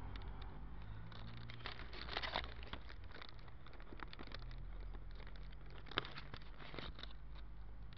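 Rustling and crackling handling noise from a hand-held camera being carried while walking, over a low steady background rumble, with a few louder clicks about two seconds in and one sharp click about six seconds in.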